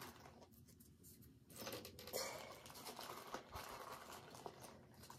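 Plastic packaging crinkling and rustling as packs of press-on nails are handled, with a few small clicks. It starts about a second and a half in, after a quieter moment.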